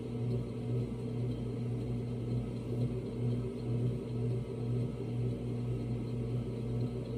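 Electric potter's wheel motor running at speed with a steady low hum.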